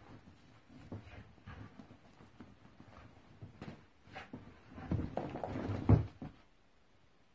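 A border collie wriggling and rolling under a rug on carpet: scattered rustling and scuffling of fabric, busier about five seconds in, with one sharp thump near six seconds as the dog scrambles out from under it.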